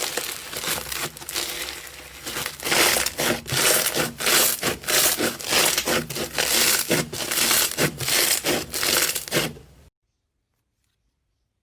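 Hands squeezing and pressing slime, giving a dense crunchy crackling that comes in pulses about twice a second. It cuts off suddenly near the end.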